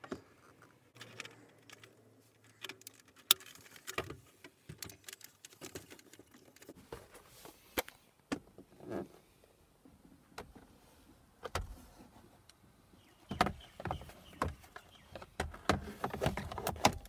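Scattered clicks, knocks and scrapes of a Toyota Camry's plastic dashboard parts and wiring plugs being handled and fitted by hand, growing denser and louder over the last few seconds.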